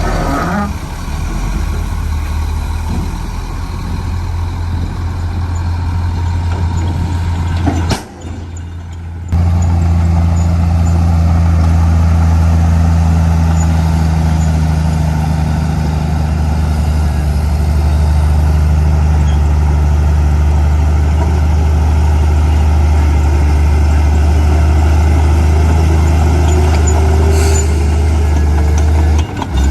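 Heavy diesel engine of earthmoving machinery running steadily under load, a deep, constant drone. It drops away sharply for about a second about eight seconds in.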